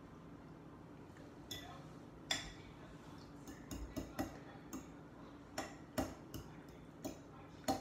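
Utensil clinking and tapping against a bowl while stirring sriracha into cooked instant ramen noodles: about a dozen sharp, irregular clinks, starting a second and a half in.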